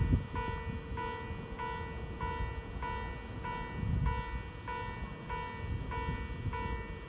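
Japanese railway level-crossing warning bell of the old JNR low-pitched type, ringing steadily at a little under two strikes a second. An uneven low rumble runs underneath.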